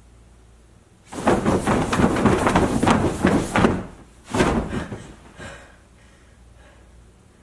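Heavy bedding rustling and thumping for about three seconds, then a shorter second rustle as the duvet is pulled back off the bed.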